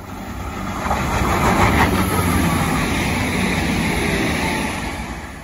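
Irish Rail 22000 Class InterCity diesel railcar passing at speed. It gets louder over the first second or two, stays loud, then falls away near the end.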